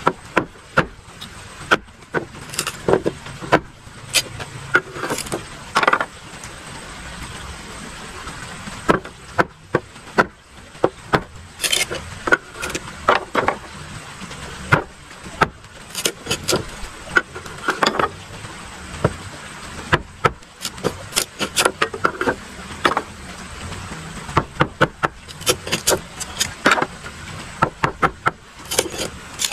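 Machete blade chopping and splitting bamboo on a wooden block: irregular sharp knocks and cracks, often several in quick succession.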